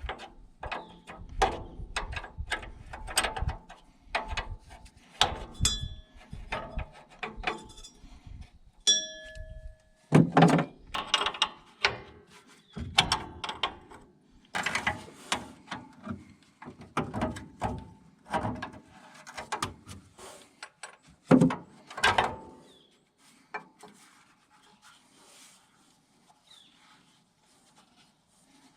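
Hand wrenches working on a brake line fitting and wheel cylinder bolts at a truck's wheel: a run of irregular metal clicks, clinks and knocks, a few of them ringing briefly. It goes much quieter about three-quarters of the way through.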